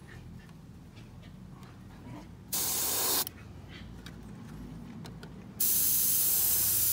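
Airbrush spraying paint in two bursts of hiss: a short one about two and a half seconds in, and a longer one starting near the end. In between, only a faint low hum.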